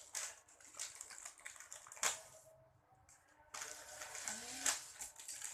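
Handling noise of a squishy toy and its packaging: irregular rustling and crinkling, with a sharp click about two seconds in and a brief lull after it.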